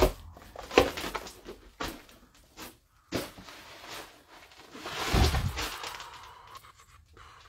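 Irregular knocks and bumps: a sharp one at the very start, a few lighter clicks over the next three seconds, then a longer scuffing rumble about five seconds in.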